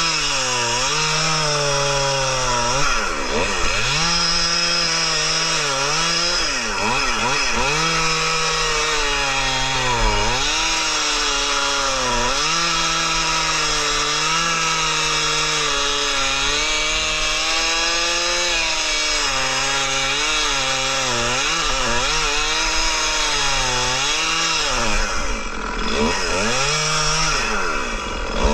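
Stihl two-stroke chainsaw bucking an oak log at full throttle, its engine pitch sagging under load and climbing again every few seconds as the chain bites and eases. Near the end it briefly drops off and revs back up.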